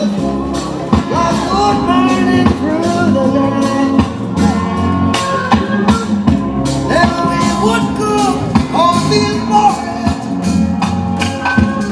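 Rock music with a sung vocal and a steady beat.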